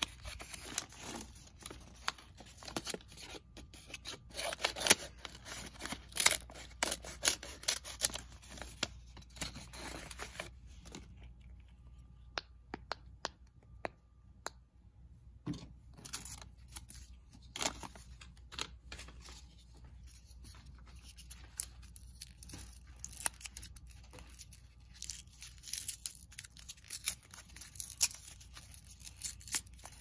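Paper crinkling, rustling and tearing as stapled paper packets are handled and torn open, a stream of short sharp crackles. It is busiest in the first ten seconds, thins out a little past ten seconds, and picks up again near the end.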